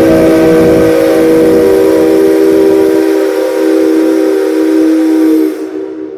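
Steam locomotive whistle of the C57 135, one long blast sounding several tones at once as a chord. A rough hiss underneath fades about three seconds in, and the whistle cuts off near the end, leaving a short echo in the hall.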